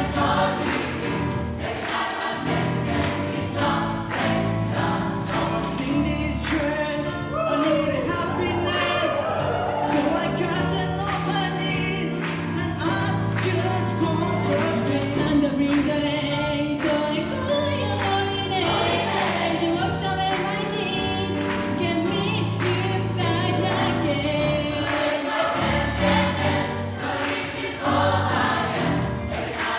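Gospel choir singing over a steady beat, with a single lead voice gliding through runs above the choir's chords.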